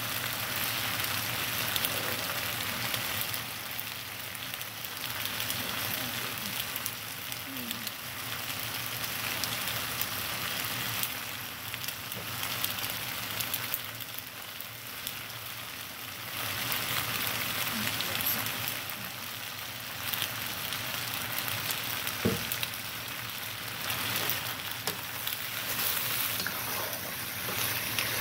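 Shredded chicken pasta sizzling in a pan on the stove, a crackling hiss that swells and fades. One sharp clack about 22 seconds in.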